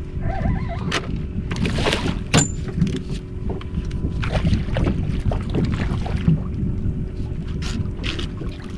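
Wind rumbling on the microphone over water splashing and sloshing as a hooked redfish is fought close in, with scattered short knocks and clicks.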